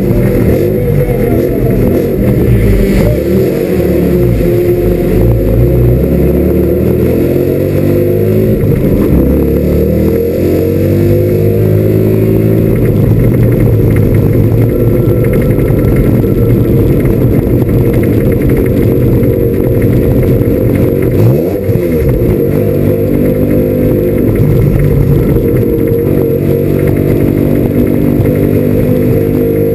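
Mazda RX-7 FC's 13B two-rotor rotary engine, heard loud from inside the stripped race car's cabin, pulling away from a stop and revving up and shifting through the gears, then running at a steady speed. A brief drop and rise in revs comes about 21 seconds in.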